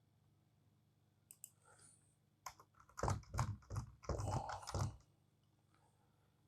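Keys typed on a computer keyboard: a few separate key presses, then a quick run of keystrokes about three seconds in, lasting about two seconds.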